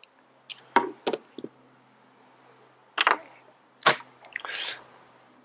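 Handling noise as a sheet of paper is moved across a table: a handful of sharp knocks and clicks, the loudest three spread over about three seconds, then a brief rustle of paper.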